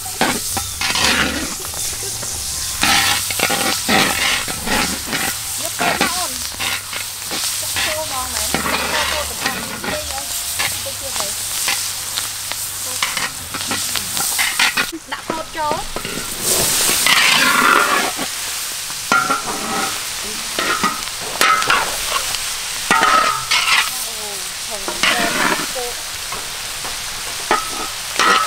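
Metal spatula scraping and knocking against a large wok while hot oil sizzles with food frying in it. There are frequent short scrapes over a steady sizzle, with a louder surge of sizzling a little past the middle.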